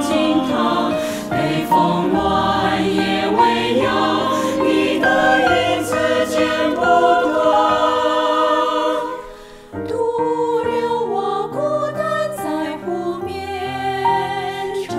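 A virtual mixed choir, each singer recorded separately and mixed together, singing a Chinese song in several parts. The singing dips briefly about two-thirds of the way in, then goes on with women's voices.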